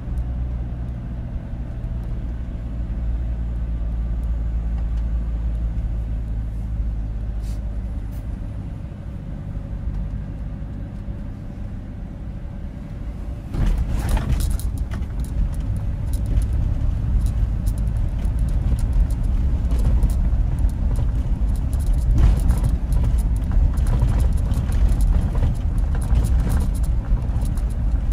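Car on the move: steady low engine and road rumble that turns louder and rougher about halfway through, with crackling and ticking over it.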